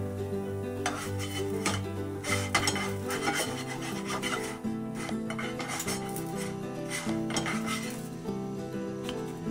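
Background music, over several clinks and scrapes of a nylon spatula lifting fried pancakes from the pan and setting them on a ceramic plate.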